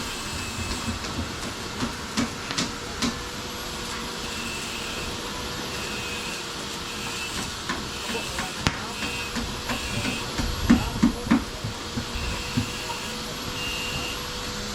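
Electric arc welding on steel roof supports: a steady crackling hiss over a faint steady hum, with scattered sharp metal knocks and clanks, the loudest in a cluster about ten to eleven seconds in.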